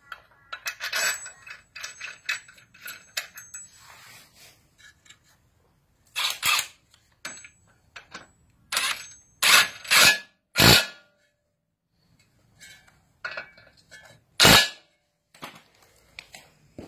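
Cordless impact wrench firing in about six short bursts, each under half a second, as it tightens the blade bolts on the mower's blade disc. Metal clinks and rattles of tools and parts fill the first few seconds.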